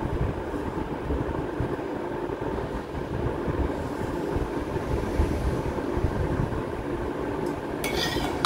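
Hands kneading and rubbing crumbly semolina-and-flour dough in a clay bowl, an uneven run of rough rubbing and bumping as the sugar syrup is worked in. A brief bright metallic rattle near the end.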